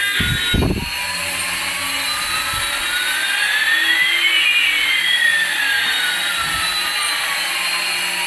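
Electronic jet-engine sound effect: a steady hiss with two tones gliding slowly, one rising and one falling, crossing about halfway through. A couple of low thumps come about half a second in.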